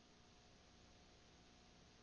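Near silence: a faint, steady hiss with a thin hum underneath.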